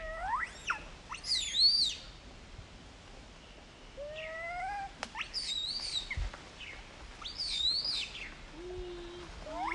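Baby long-tailed macaque crying in distress: several bouts of shrill squeals that glide up and down in pitch, with a short lower call near the end.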